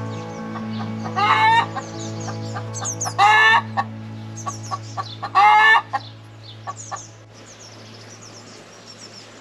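A hen calling loudly three times, about two seconds apart, each call about half a second long. Soft background music with held low notes runs under the calls and fades out about seven seconds in, and small birds chirp faintly.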